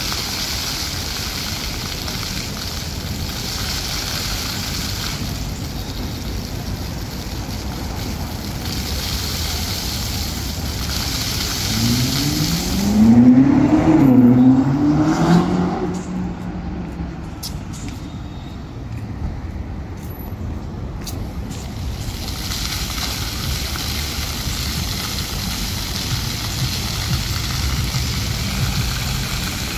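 Steady city traffic noise. About halfway through, a vehicle accelerates nearby: its engine pitch climbs, drops once as if through a gear change, climbs again, then levels off and fades.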